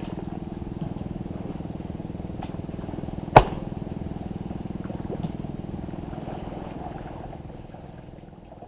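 A small engine running steadily at an even speed, with one sharp knock about three seconds in. The sound fades out near the end.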